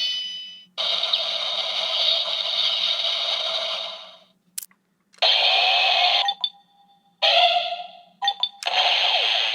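Electronic sound effects and short jingles from a Bandai Gozyuger Super Sentai transformation toy, played through its small speaker, with no bass. They come in several separate bursts with short gaps between them, and there is a single sharp click about four and a half seconds in.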